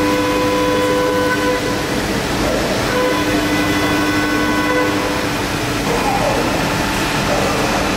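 HG Grimme SysTech two-spindle 5-axis gantry CNC milling machine cutting aluminium, a loud steady machining noise. A steady whine with overtones sounds during the first second and a half and again from about three to five seconds in.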